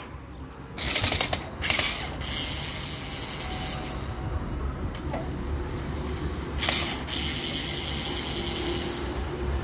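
Small cordless screwdriver running in several short spurts as it turns screws on the fittings of a combi boiler's main heat exchanger.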